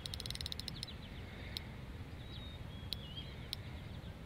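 Fishing reel clicking fast during the first second while a hooked musky is fought, then a few single clicks. Faint bird chirps over a low rumble in the middle.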